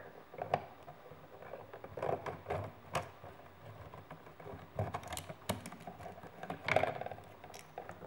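Irregular small clicks and rustling from hand work on a push-in (backstab) wall outlet. A small screwdriver is pressed into the release holes and the copper wires are pulled out of the back of the outlet.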